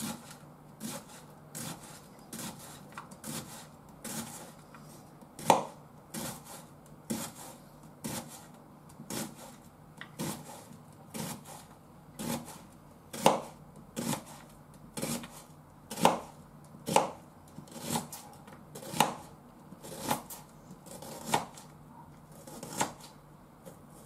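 Kitchen knife slicing a peeled onion on a cutting board. The blade taps the board with each cut, in a steady unhurried rhythm of about one cut a second, some strokes louder than others.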